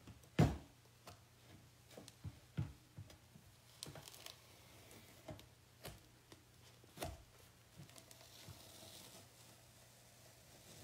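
Scattered light taps and clicks of chalk-art tools being handled and set down on a tabletop, the firmest about half a second in, with faint soft scraping in between.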